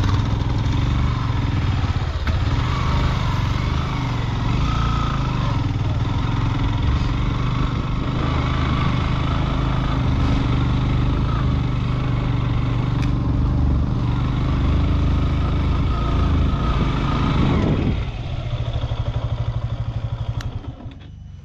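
Motorcycle engine running steadily while riding an off-road track. About 18 seconds in the engine note drops and gets quieter, then fades further near the end.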